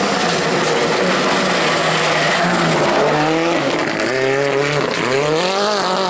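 Rally car engine at full throttle on a gravel stage as the car approaches and passes, over a hiss of gravel from the tyres. Its revs run fairly steady at first, then from about halfway climb and drop sharply several times with quick gear changes.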